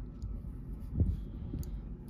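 Handling noise from earrings being picked up and set down: a dull thump about a second in and a few faint light clicks, over a low steady rumble.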